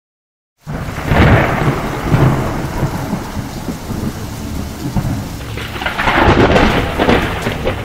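Thunderstorm sound effect: rain with thunder. It starts suddenly just after half a second in, and the thunder swells loudest twice, near the start and again around six seconds in.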